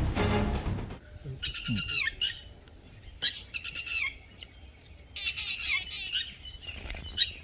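Music ending about a second in, then birds calling: four bouts of high, quick chirps with quiet between them.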